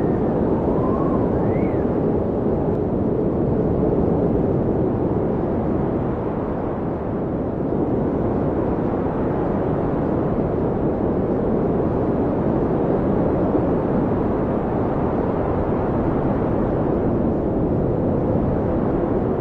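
Blizzard wind blowing steadily as a dense, deep rush of noise. Faint howling whistles rise and fall in pitch, most plainly in the first two seconds.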